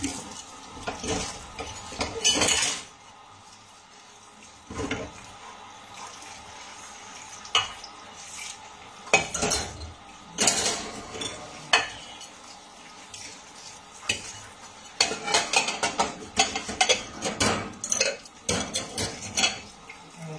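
Dishes and cutlery clinking and knocking against each other in a stainless-steel sink as they are washed by hand, in scattered strikes with a denser run of clatter near the end.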